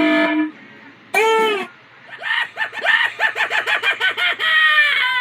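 Sound-effect samples triggered one after another on a Launchpad Pro: a short pitched blip, a brief pitched cry about a second in, a fast run of short pitched pulses at about seven a second, then a falling sweep near the end.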